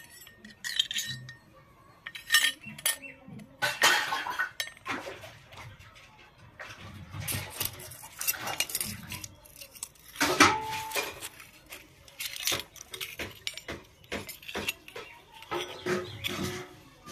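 Miniature stainless steel toy pans and a skimmer clinking as they are handled and set down on concrete: a series of irregular metal clinks, one ringing briefly about ten seconds in.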